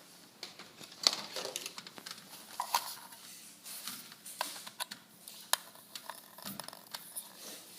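Scattered light clicks and taps of small hard objects being handled: a toy remote-control car and its AA batteries being fiddled with.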